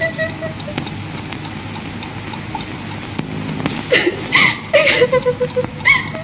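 Several short whining cries that rise and fall in pitch, starting about four seconds in, over the steady hiss of an old film soundtrack.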